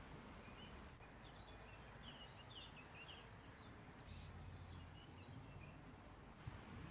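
Faint outdoor ambience in which distant birds give a run of short, high chirps during the first half. Near the end comes one soft, low thump.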